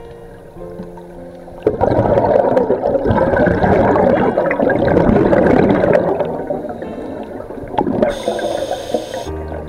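Scuba regulator exhaust heard underwater: a diver's exhaled air bubbling out loudly for about four seconds, starting suddenly a couple of seconds in and then easing off. A brief high tone follows near the end.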